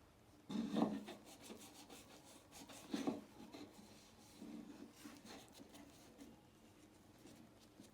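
Faint, irregular rubbing strokes on wood by hand, the loudest about a second in and another about three seconds in, with softer ones after and dying away near the end.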